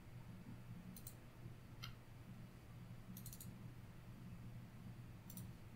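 Faint computer mouse clicks: a few single clicks spaced about a second apart, with a quick cluster of clicks about three seconds in, over a low steady room hum.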